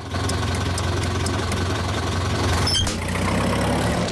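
Old truck's engine running steadily with a low hum, with light regular ticking in the first second and a half. About three quarters of the way through comes one short sharp clank as the towed horse box comes loose.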